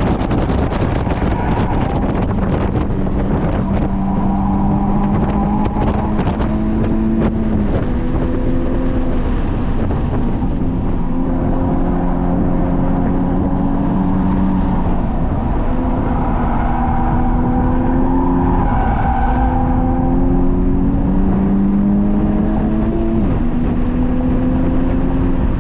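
Honda Civic Type R FK8's 2.0-litre turbocharged four-cylinder engine under load on track. Its pitch climbs slowly and falls back sharply several times, over loud road and wind noise.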